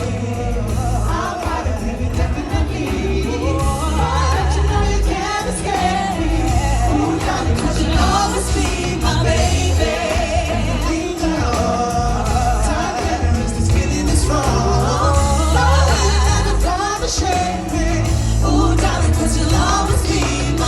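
Pop music with singing over a heavy bass line.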